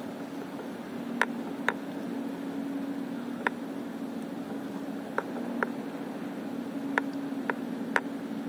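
Small waves slapping against the hull of an inflatable stand-up paddleboard: sharp taps at irregular intervals, about eight in all, over a steady hiss and low hum.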